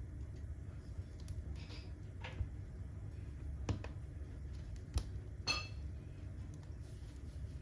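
Firewood burning in a fireplace: a low steady rumble with four sharp crackles or pops, the last followed by a brief ring.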